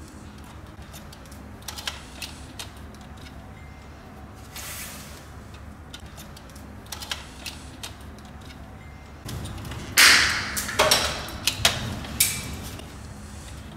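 Pliers and stiff electrical wires being worked into a breaker panel's plastic terminal block: small scattered clicks and scrapes, with a louder rustling clatter of the cables being handled about two-thirds of the way through.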